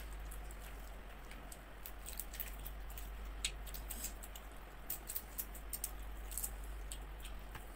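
Scattered faint clicks and crackles of shrimp being peeled by hand at a meal, with a run of clicks about five seconds in, over a steady low hum.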